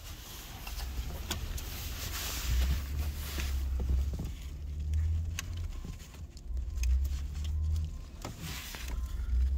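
Light clicks and rustling of a 2020 Ram's plastic center dash bezel and its wiring connectors being handled, over an uneven low rumble on the microphone that swells and fades several times.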